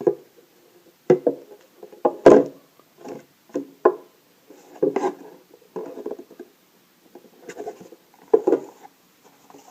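Hands handling a gift box and the cloth pouch inside it: a string of separate knocks and rustles, the loudest about two seconds in.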